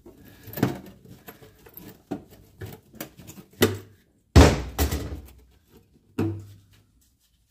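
A string of knocks and clunks from tools and sheet metal being handled, with the loudest thump about four and a half seconds in and another near six seconds.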